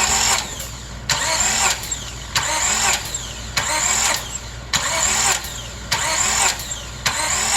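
Starter motor of a 2006 Honda Accord's 3.0-litre V6 cranking the engine in short bumps, seven in all, roughly one every second, with pauses between them. The engine is being turned over for a compression test on cylinder 5, the cylinder with a bad exhaust valve seat.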